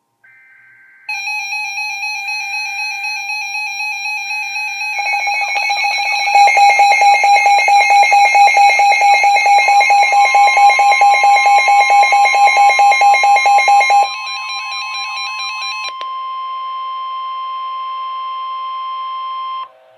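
Emergency Alert System tones of a NOAA Weather Radio severe thunderstorm warning. Faint data bursts come first, then a loud, rapidly pulsing electronic beep from an alert receiver. About halfway through, the steady 1050 Hz warning alarm tone joins it and holds on until it cuts off near the end.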